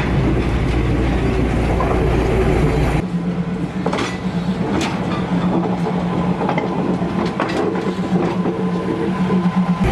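Diesel railcar train running slowly along narrow-gauge market track: a steady engine hum with occasional clicks of wheels over the rails. The deep rumble drops away suddenly about three seconds in.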